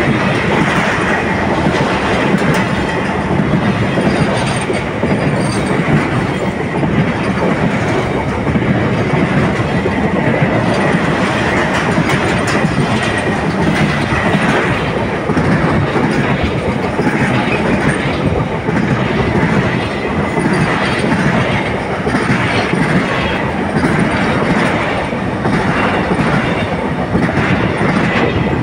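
A freight train of enclosed car-carrier wagons passing close by. It makes a loud, steady rumble of steel wheels on rail, with regular clicks as the wheels cross the rail joints and a faint steady high whine.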